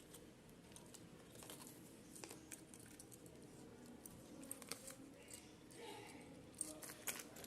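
Faint handling of a small metal keychain: scattered light clicks and clinks with soft rustling, and a few sharper clicks near the end.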